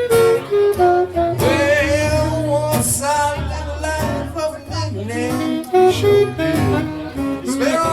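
Blues music: a bending melody line over guitar and a walking bass line.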